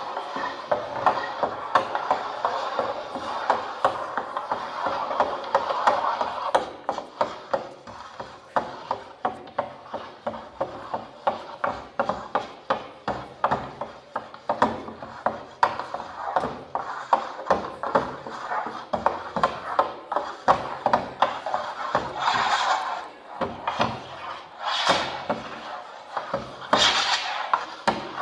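Electronically amplified scratching and tapping of several people making repetitive marks on a table surface, a rapid, uneven rhythm of short strokes that falls in and out of step. The strokes thin out a little in the middle and come in louder scraping bursts near the end.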